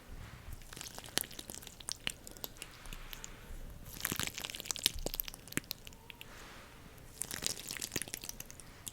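Sticky, crackling clicks close to the microphone, like a tacky surface pulling apart, in dense clusters about four seconds in and again about seven seconds in.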